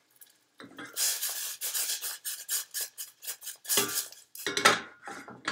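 Stainless steel saucepan shaken and slid on a gas hob's metal grate: a quick scraping rattle of metal on metal, then a few heavier clunks near the end.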